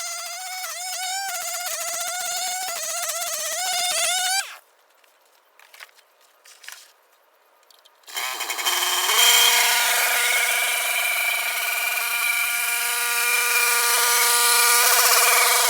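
Small petrol engine running hard, its pitch wavering under load, cutting off suddenly about four and a half seconds in. After a few seconds of near quiet with a few faint clicks, an engine starts up again about eight seconds in and runs steadily at high speed.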